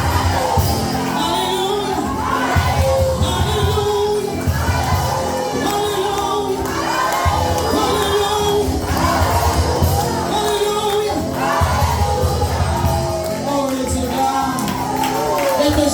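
Church worship music: voices singing a song together over a band, with a bass line that comes in and drops out phrase by phrase.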